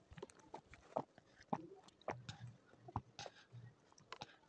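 A toddler sucking and swallowing from the spout of a plastic drinking bottle: faint, irregular small clicks and mouth smacks.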